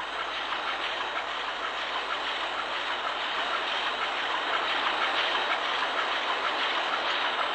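Ship's main diesel engine running in the engine room: a steady, dense mechanical clatter and rush.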